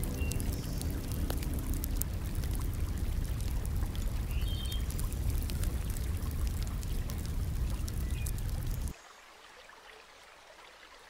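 Steady rush of running water with scattered drip-like ticks. It cuts off abruptly about two seconds before the end, leaving only a faint hiss.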